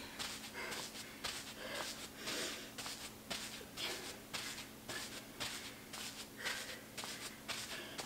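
A woman breathing hard and fast in an even rhythm of about two breaths a second while doing plank jacks, with soft scuffs of her sneakers on artificial turf.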